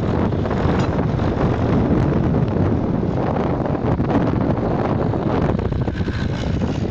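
Wind buffeting the microphone in a steady rumble, over the running of vintage tractor engines passing below.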